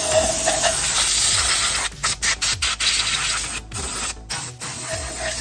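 Cloth wiping and rubbing over the plastic cowl and engine covers, a dry scrubbing noise that breaks into short, choppy strokes about two seconds in.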